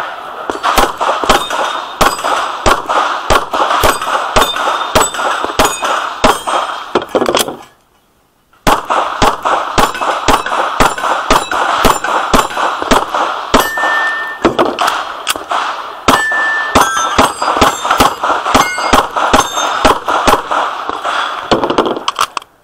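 Pistol shots fired in quick succession, about two to three a second, with steel plate targets clanging and ringing as they are hit. The firing breaks off for about a second near eight seconds in, then resumes.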